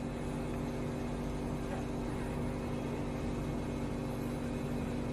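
Steady machine hum with several low held tones, unchanging throughout.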